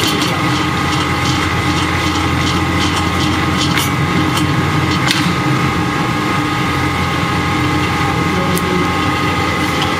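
B10 commercial food mixer running steadily on test, its motor and gearbox giving an even hum with a whine above it. A few light clicks sound now and then over the hum.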